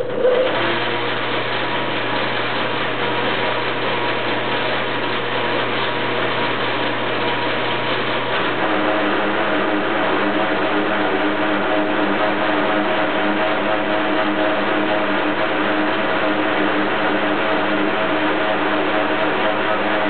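Motor-driven wire stripping machine switched on and running steadily, a hum with a constant whine; its tone shifts slightly about eight seconds in.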